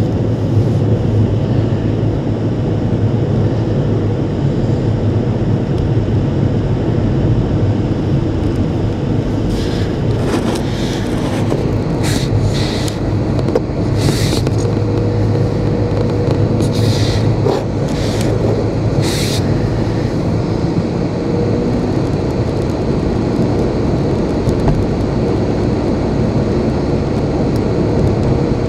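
Steady low rumble of a car's engine and tyres on the road, heard from inside the cabin while driving, with several brief hissing sounds around the middle.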